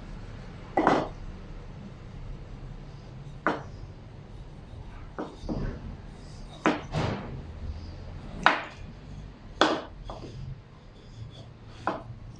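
Sharp wooden knocks of a hand tool striking wood while cutting a joint, about ten irregularly spaced blows.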